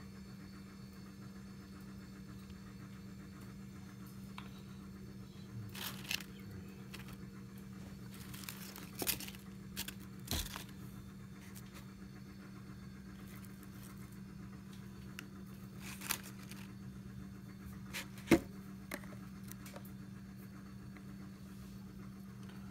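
Occasional crinkling of dry leaf litter and clicks from a clear plastic tub being handled, with one sharp tap near the end, over a steady low hum.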